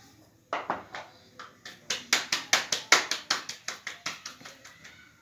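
Roti dough being slapped back and forth between the palms to stretch it into a phulka: two pats, then a quick run of about five sharp pats a second that grows louder and then fades.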